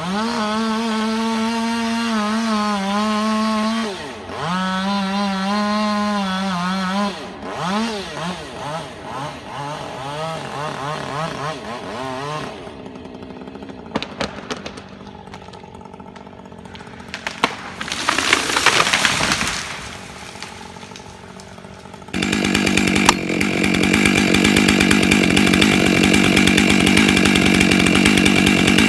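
Chainsaw running at full throttle in a cut, its pitch sagging and recovering under load, then easing off; scattered cracks and a rushing crash of a felled tree coming down about eighteen seconds in. Near the end a chainsaw runs steadily at full throttle.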